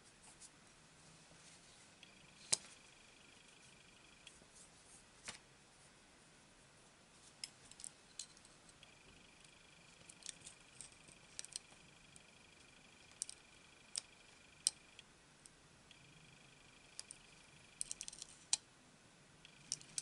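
Scattered light clicks and taps of metal tweezers against an opened iPod Nano's aluminium frame and internal parts as tape and pieces are picked out, a few of them sharper than the rest. A faint high whine comes and goes in stretches.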